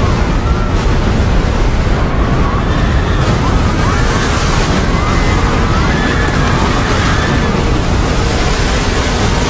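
Film sound of a giant tsunami wave crashing through a street: a loud, dense rush of water over a deep rumble, with people screaming over it.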